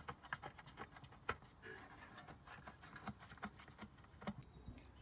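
Faint, irregular clicks and taps of bolts and hand tools being handled while the transmission pan bolts are started back in.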